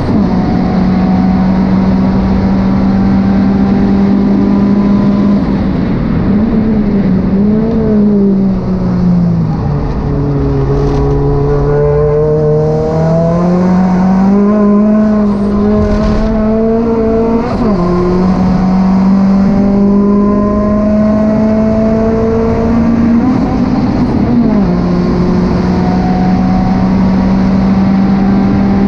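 Renault Mégane RS R26's turbocharged 2.0-litre four-cylinder engine running hard at track pace, heard from inside the cabin with wind and tyre noise. The engine note holds mostly steady, sags about ten seconds in, then climbs and drops abruptly at an upshift a little past halfway.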